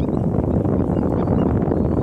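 Steady low rumble of wind buffeting the microphone, with faint short bird chirps repeating a few times a second above it.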